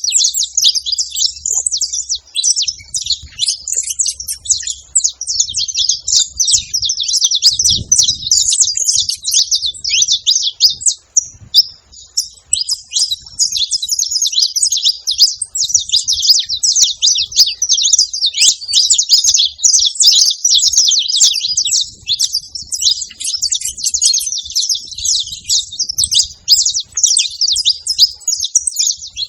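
Several saffron finches chirping and twittering in a dense, continuous chatter, with a brief lull about eleven seconds in.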